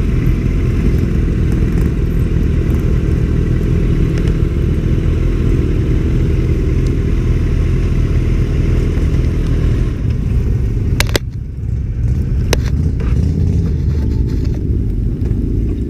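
Motorcycle engines running steadily at low speed, a slow ride among other motorcycles. Two sharp clicks sound, about eleven and twelve and a half seconds in.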